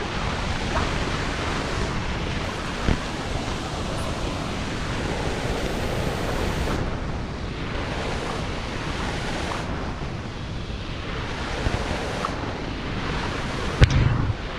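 Steady rush of a waterfall, falling water. A couple of light knocks, the louder one near the end.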